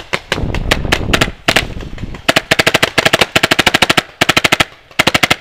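Paintball markers firing. Scattered single shots come in the first two seconds. Then the Tippmann Phenom marker fires rapid strings of about ten shots a second, in four bursts with short breaks between them.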